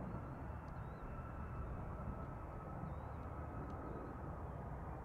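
Distant Boeing 777-300ER on final approach, its GE90 engines heard as a steady low rumble with a faint high whine that drifts slowly lower in pitch. A few faint bird chirps.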